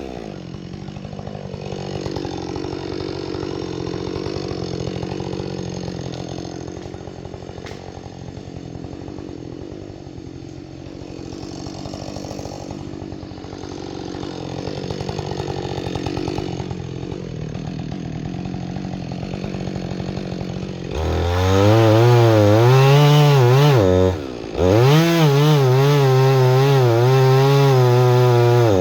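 Husqvarna 562XP two-stroke chainsaw running at a lower, steady speed for most of the stretch. About two-thirds through it opens up to full throttle, its pitch wavering under load as it cuts wood. Near the end it lets off once briefly and revs straight back up.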